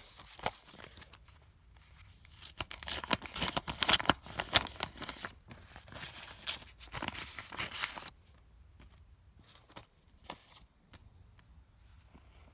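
A paper mailing envelope being torn open and handled, with dense crackling and rustling of paper for about six seconds, then only a few faint paper clicks.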